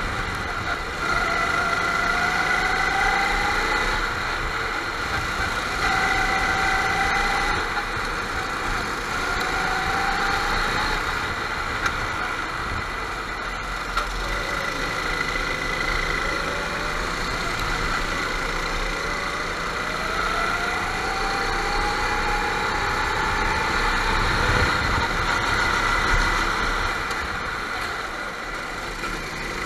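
Racing kart engines running, their pitch rising several times as karts accelerate, over a continuous drone of other karts on the track.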